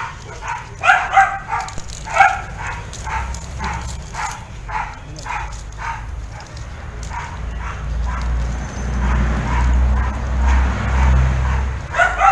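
A dog barking repeatedly, about two short barks a second. The barks fade partway through as a low rumble rises, then come again louder near the end.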